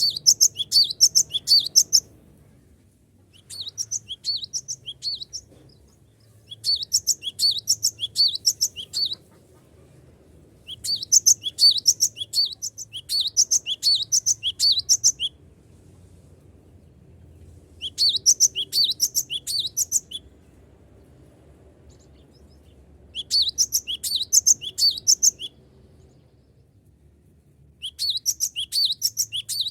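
Cinereous tit (glatik batu) singing: phrases of rapid, sharp, high repeated notes, each phrase lasting two to four seconds, with pauses of a second or two between them.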